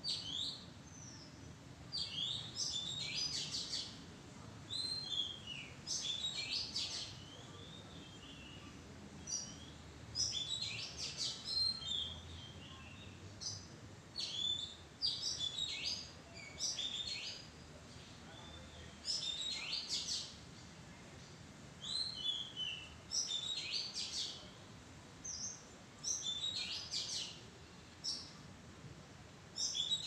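Oriental magpie-robin singing: varied whistled phrases mixed with quick chirps, each a second or two long and repeated with short pauses between.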